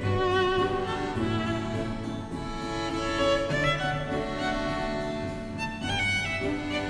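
Background music played on bowed strings, a violin melody with vibrato over lower sustained string notes.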